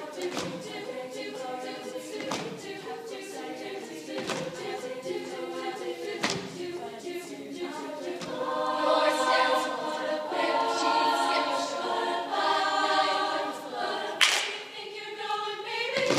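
Girls' treble choir singing an a cappella pop arrangement in several parts. Sharp percussive hits land about every two seconds in the first half, and the voices swell louder from about halfway through.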